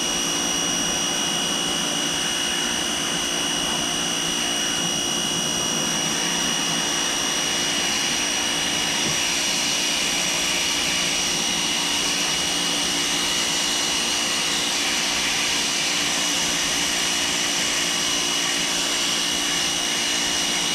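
Pressure washer running without a break: a steady hiss of high-pressure water spray with a constant high whine from the machine.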